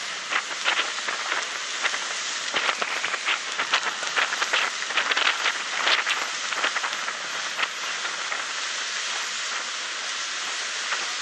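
Water rushing along the hull of a small ferry boat under way in choppy river water, with irregular splashes and slaps crowding together in the first seven seconds or so, then a steadier hiss.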